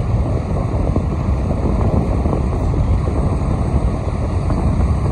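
Steady low rumble of wind buffeting the microphone of a phone carried by a runner.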